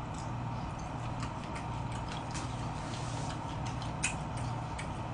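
Eating sounds: soft, irregular clicks and smacks as braised pig's trotter (jokbal) is chewed off the bone and chopsticks are handled, with a sharper click about four seconds in, over a steady background hum.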